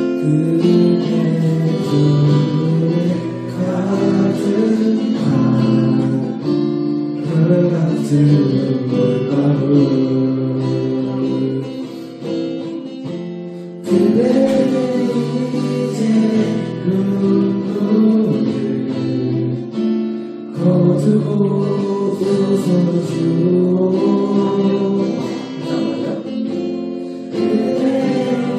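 A group singing together to acoustic guitar strumming. The music dips and then starts again abruptly about halfway through.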